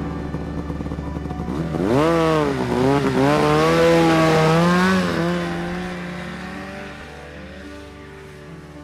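Polaris Pro RMK 800 snowmobile's two-stroke engine revving as the sled pulls away, its pitch rising and falling a few times, then fading steadily as it rides off.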